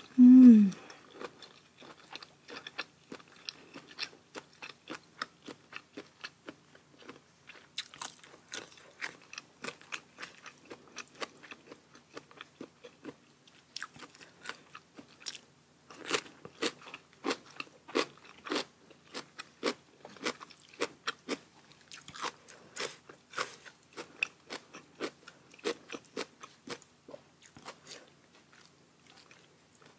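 Close-miked chewing of a papaya-salad meal, with many crisp crunches and wet mouth clicks in an irregular run. A short, loud voiced hum falling in pitch comes right at the start.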